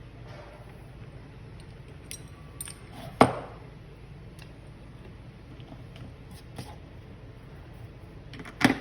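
Metal hardware of a gym cable attachment clinking and knocking as it is handled: scattered light clicks, a sharp metallic knock with a brief ring about three seconds in, and another loud knock near the end.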